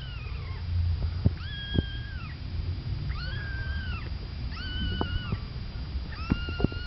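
Young kitten mewing: five high, thin cries about one and a half seconds apart, each rising and falling in pitch, over a low background rumble.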